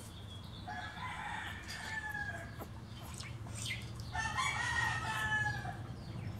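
Two drawn-out animal calls, each about a second and a half long and sliding slightly down in pitch, the second starting about three seconds after the first.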